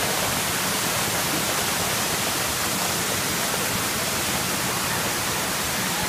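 Waterfall pouring down onto rocks close to the microphone: a steady, even rush of falling water.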